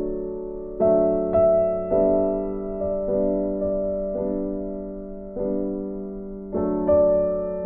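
Background piano music: a slow, gentle tune of single notes and chords, a new one struck about every half second to second, each fading away.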